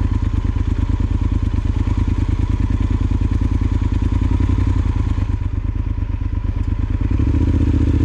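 Yamaha Super Ténéré XT1200Z's parallel-twin engine running at low revs in an even, pulsing rhythm as the bike is eased over a rough, rocky trail. The pulsing smooths out about seven seconds in.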